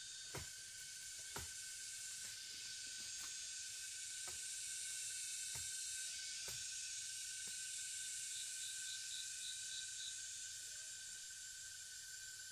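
Quiet forest ambience: a steady high hiss of insects with a thin steady whine, broken by a dozen or so sharp snaps, and a quick run of about seven chirps a little past the middle.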